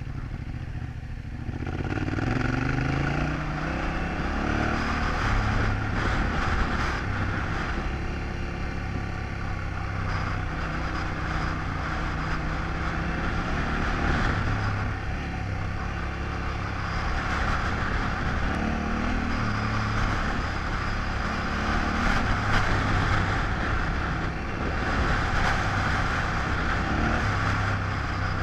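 Yamaha Ténéré 700's parallel-twin engine pulling away, rising in pitch about two seconds in, then running on steadily with the throttle opened and eased in turns, over a steady rushing noise.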